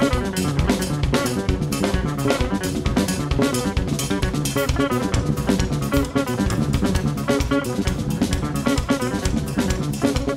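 Live jazz trio of electric guitar, electric bass and drum kit playing. Busy drumming with rapid snare, rimshot and bass drum strokes runs under the guitar and bass lines.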